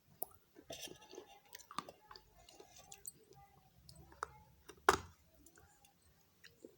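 Close-up chewing and crunching of hard baked clay pot pieces: irregular crisp cracks and gritty crunches, with one loud sharp crack about five seconds in.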